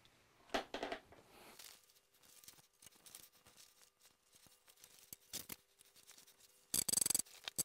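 A fabric leader cloth being unfolded and pressed onto the Velcro strip of a longarm quilting frame rail: soft cloth rustles and handling noises, with a louder scratchy burst about half a second long near the end.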